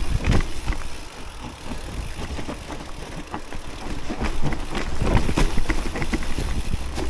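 E-mountain bike riding downhill over wet leaves and bumpy ground: tyres rolling through the leaves, with frequent knocks and rattles from the bike over bumps and a low wind rumble on the microphone that grows louder from about four seconds in.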